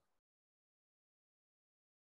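Near silence: the audio is gated down to nothing.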